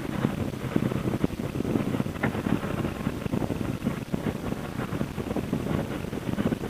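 Wind buffeting a cheap camcorder microphone on a moving motorcycle, with the Triumph America's parallel-twin engine running underneath as a low, rough rumble.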